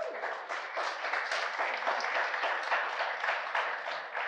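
Congregation applauding: many hands clapping together in a steady, dense patter.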